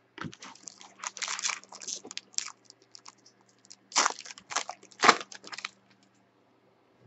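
Foil trading-card pack wrapper crinkling and tearing as it is opened by hand and the cards are pulled out. There are two bouts of rustling, about a second in and again about four seconds in.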